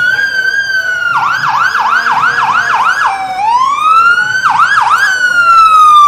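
Fire apparatus electronic siren, loud, cycling through its tones: a held wail, then a run of fast up-and-down yelps about three a second. It rises again, gives two more yelps and then slides slowly down in pitch near the end.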